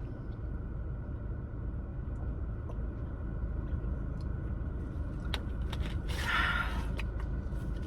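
Steady low rumble of a car's interior while eating, with a few scattered soft clicks and a short rustle about six seconds in.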